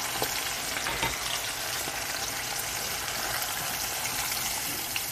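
Batter-coated shrimp deep-frying in hot oil, the oil sizzling steadily as it bubbles hard around them, with a couple of faint light ticks.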